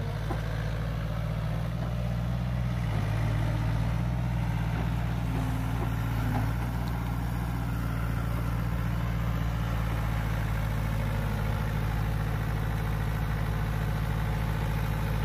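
Sumitomo S160 hydraulic excavator's diesel engine running steadily with a low hum as it digs a ditch, getting a little louder about three seconds in.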